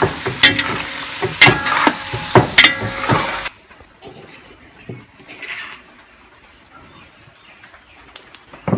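Pieces of meat sizzling in hot oil in an aluminium pot as they are turned by hand, with sharp clicks from the stirring. The sizzle cuts off suddenly about three and a half seconds in, leaving a quiet background with a few short, high bird chirps.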